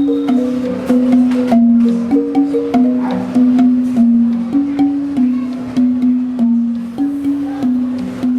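Marimba de chonta playing a quick, repeating figure of struck notes, with sharp percussion clicks over it.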